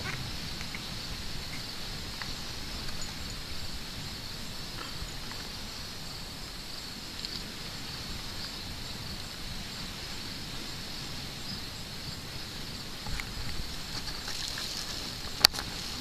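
A steady, high-pitched insect chorus over a low rumble, with one sharp click near the end.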